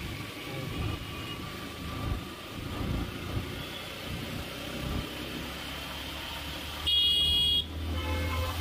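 Suzuki Intruder 150 motorcycle's single-cylinder engine running as the bike speeds up from about 30 to 47 km/h. About seven seconds in, a vehicle horn sounds loudly for under a second.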